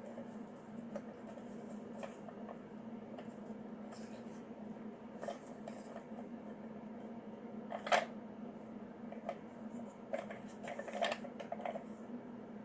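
Small clicks and knocks of hands handling and prying at the plastic and metal housing of a Nelson traveling sprinkler, with a sharper click about eight seconds in and a run of clicks near the end. A steady low hum runs underneath.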